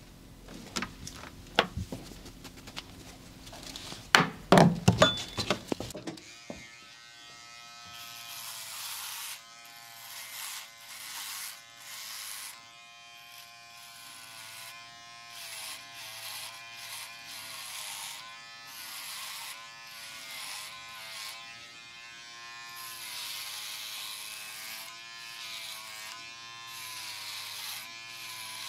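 Electric hair clippers switch on about six seconds in and buzz steadily, the pitch wavering slightly and a hiss coming and going as they are worked over hair. Before that come several sharp clicks and knocks, loudest just before the clippers start.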